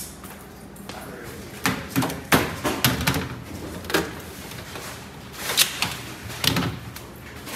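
Irregular knocks and clunks of hard objects being handled, about eight in all with the loudest about two and a half seconds in, over a low steady hum.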